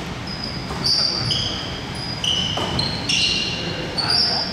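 Basketball shoes squeaking on the court floor during play: several short high squeaks at different pitches, overlapping one another, with a few thumps of a basketball bouncing.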